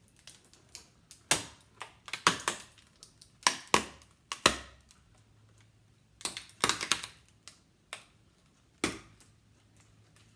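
Deflating balloon pulling away from a hardened, glue-stiffened twine egg shell, giving off irregular crisp crackles and snaps in bursts, dying away near the end.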